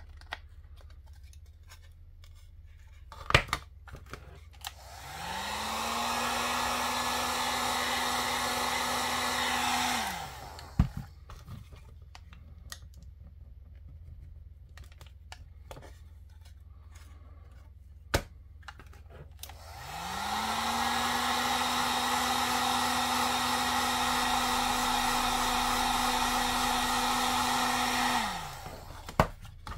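Handheld heat gun switched on twice: each time its fan motor winds up to speed, blows steadily for roughly six and eight seconds, then winds down when switched off. A few sharp single clicks fall between and after the two runs.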